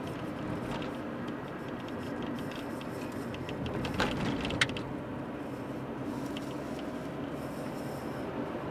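Steady road and engine noise of a car driving, heard from inside the cabin, with a couple of short clicks or knocks about four seconds in.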